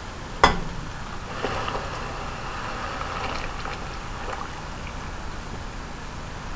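Granulated sugar poured from a metal bowl into a stainless steel pot of boiling water: a single sharp knock about half a second in, then a steady hiss as the sugar pours and sinks into the hot water.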